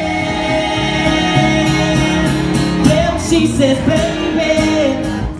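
Live music: a song played on amplified guitar, with a singer holding long wavering notes between sung lines.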